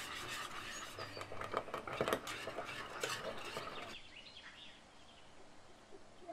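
Kitchen utensils clinking and scraping against a dish, with a few sharper clinks, stopping about four seconds in.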